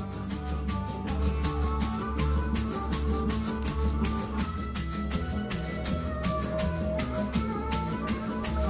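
Egg shakers shaken in a quick, even beat, like a train's chugging, over recorded music.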